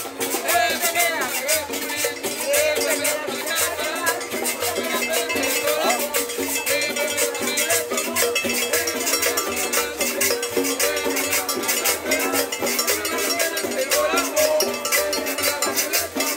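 Live band playing a Latin dance number: conga drums and other hand percussion keep a fast, steady beat over an upright bass line and guitar.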